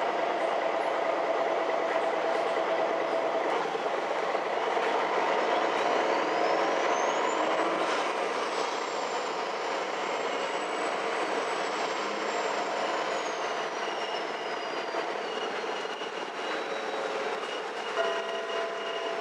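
Ride noise inside a MAN NG 313 articulated city bus on the move: a steady drive and rolling noise, with a high whine that climbs over a few seconds, holds, and then falls away again. Near the end a set of steady tones sets in.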